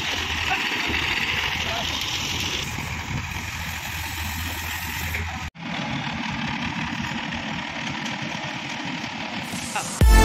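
Diesel engine of an ACE pick-and-carry mobile crane running steadily, with workers' voices over it. The sound drops out for an instant about five and a half seconds in, and electronic music starts at the very end.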